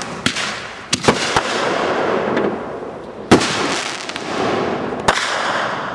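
Consumer aerial fireworks shells fired in sequence from a fused mortar rack, bursting overhead: a string of about six sharp bangs, the loudest about three seconds in, each trailing off in a long rolling rumble and echo.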